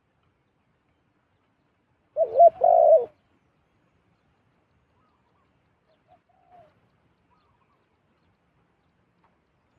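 Zebra dove cooing: one loud run of quick warbling coo notes about two seconds in, lasting under a second, then two faint short coos a few seconds later.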